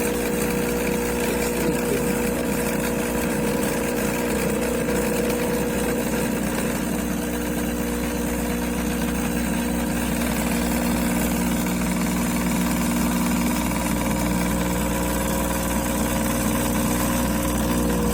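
Espresso machine's pump running with a steady, even buzzing hum.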